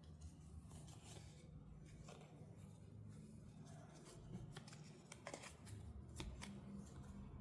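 Faint handling sounds of small toy items: scattered light clicks and soft rubbing, several sharp clicks close together between about four and a half and six and a half seconds in, over a low steady hum.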